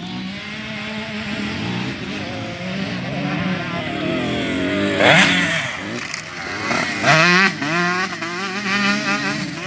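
Motocross bikes running on the track, several engines revving at once with pitch rising and falling through the gears and over the jumps, loudest as one bike passes close about halfway through and again about two-thirds of the way in.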